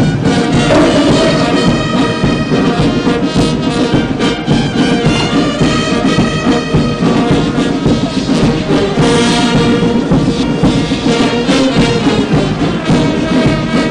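Brass band music, steady and loud, with sustained trumpet and trombone-like notes.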